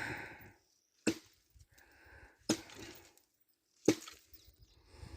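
Heavy, regular blows of a hand tool into hard ground or wood, one about every second and a half, three in all.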